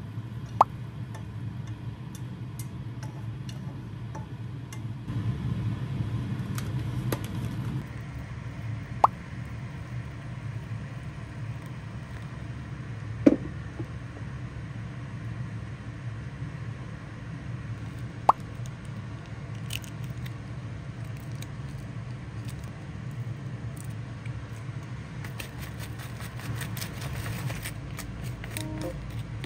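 Kitchen food-preparation sounds over a steady low hum: a few single sharp clinks of chopsticks and a spoon against dishes, and near the end a quick run of clicks as natto is stirred with chopsticks.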